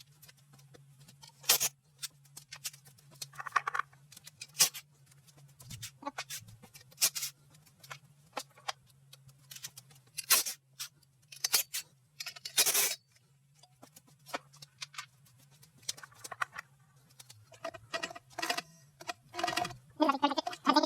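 Scattered sharp metallic clicks and clinks of hand tools and loose engine parts being handled during engine disassembly, irregular and a few louder than the rest, with a faint steady low hum underneath.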